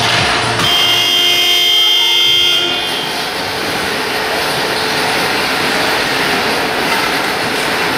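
Ice rink's electric horn sounds one steady blast of about two seconds, signalling the end of the game, followed by steady rink noise.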